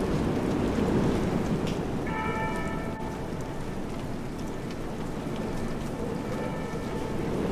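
Steady rain ambience, a dense hiss with a low rumble. A faint held musical tone sounds about two seconds in and again weakly near the end.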